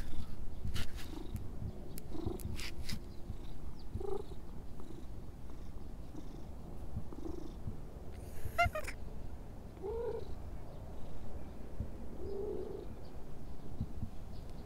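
A stray cat purring steadily while it is stroked by hand.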